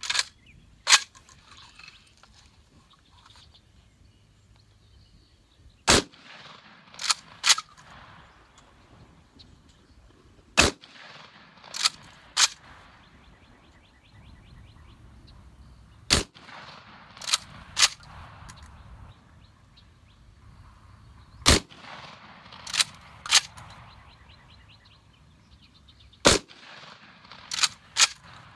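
Vepr 12 semi-automatic 12-gauge shotgun firing 00 buckshot, slow single shots about five seconds apart, five in all. Each shot is followed within a second or two by two shorter, fainter sharp sounds, and two sharp sounds come in the first second.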